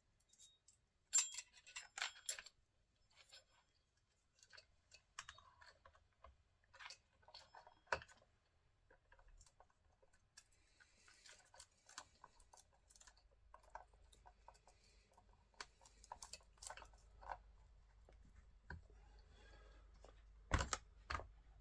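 Quiet, scattered clicks, taps and light rubbing of hands handling a small chainsaw and its parts, with a few sharper knocks about a second in and near the end.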